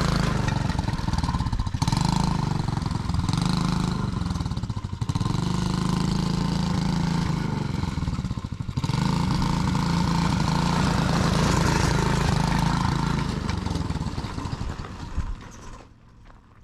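Small four-wheeler's engine running under a servo-worked radio-controlled throttle, its pitch and level rising and falling with several brief dips, then falling away near the end.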